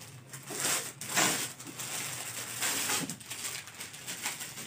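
Clear plastic garment bag crinkling and rustling in uneven bursts as a folded suit is pulled out of it.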